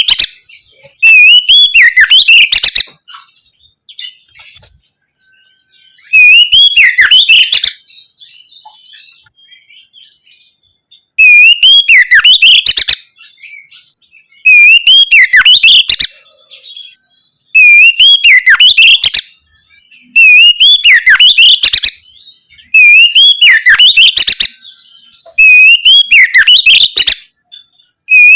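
Oriental magpie-robin (kacer) singing loud, full song phrases: about eight similar bursts of rising and falling whistled notes, each lasting under two seconds and repeating every few seconds.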